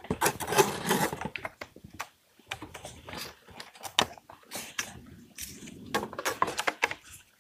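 Wooden OSB jig parts being worked together by hand: the tabs of short floor pieces pushed and tapped into slots in the jig's feet, giving a string of wood-on-wood knocks, clicks and scraping, busiest at the start and again near the end.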